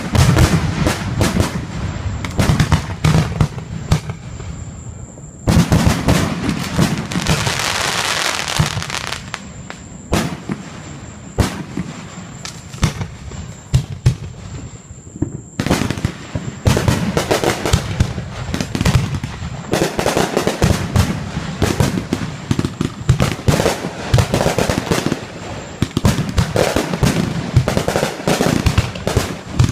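Aerial fireworks going off in quick succession: repeated booming shell bursts and crackling. The busiest stretch comes about five seconds in, it thins out in the middle, and it builds again past the halfway point.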